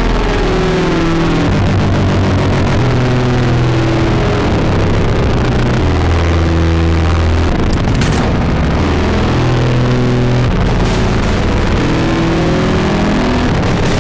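Industrial drone music: a dense, loud wall of distorted noise over low droning tones that shift pitch every second or two, with a brief noisy hit about eight seconds in.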